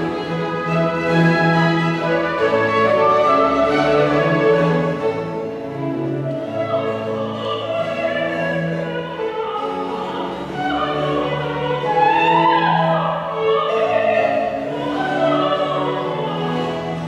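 Baroque opera aria played by a period string orchestra with harpsichord and lute. A soprano voice joins about halfway in, singing running, ornamented lines over the strings.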